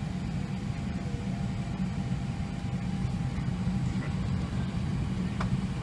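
Steady low background rumble inside a parked airliner's cabin, with a faint high steady tone in the first half.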